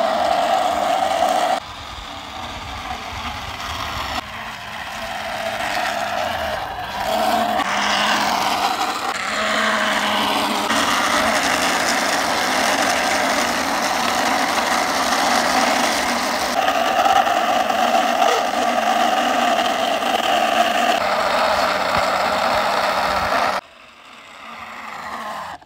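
A vehicle engine running with some revving. Its sound changes abruptly several times and drops away a couple of seconds before the end.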